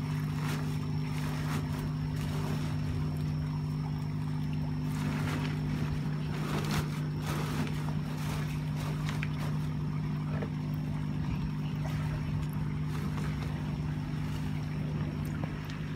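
Air pump humming steadily while its air stone bubbles a koi tub, with water splashing and sloshing at times.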